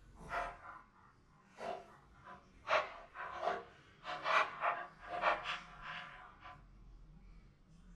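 Small dog sniffing and snuffling in a string of short, irregular bursts, its nose down in the compartments of a plastic treat-puzzle board. The bursts stop about six and a half seconds in.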